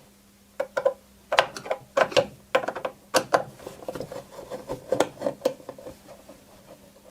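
Screws being turned out of a Mean Well PB-360 battery charger's case with a screwdriver: a run of irregular clicks and short scrapes.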